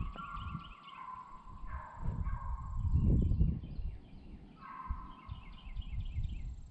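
Hunting hounds baying on a deer's trail: several long, drawn-out howls, one after another. Low rumbling gusts run underneath, heaviest about three seconds in.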